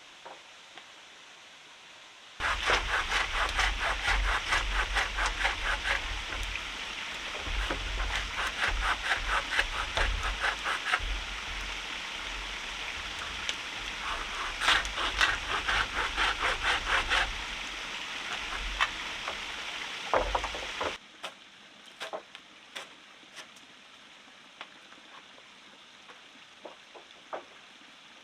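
Hand saw cutting through wood in quick, even back-and-forth strokes. The sawing starts suddenly and cuts off abruptly about three-quarters of the way through, leaving a few light knocks.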